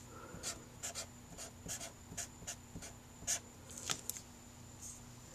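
Dry-erase marker writing on paper: a run of short, faint scratchy strokes as a Chinese character is drawn, stopping about four seconds in.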